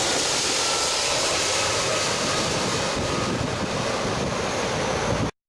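Boeing 767-300 airliner landing: a steady jet engine rush with a faint whine that slowly falls in pitch. The sound cuts off abruptly near the end.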